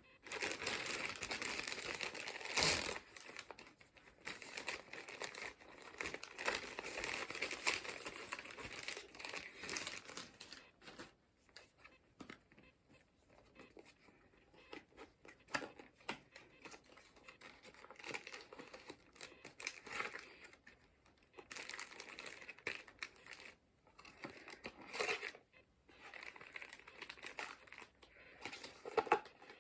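Packaging crinkling and rustling as a sunglasses package is unwrapped by hand, in irregular bursts, with the loudest sharp crackle about three seconds in.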